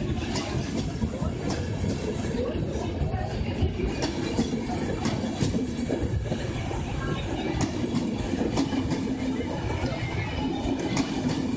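Passenger coaches of a departing train rolling past with a steady rumble, their wheels clicking over the rail joints.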